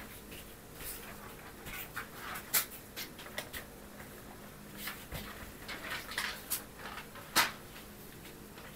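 Close-up paper handling on an open hardcover book: soft rustles of the pages under a hand holding a pen, with scattered light clicks and taps. The sharpest click comes about two and a half seconds in, and another near the end.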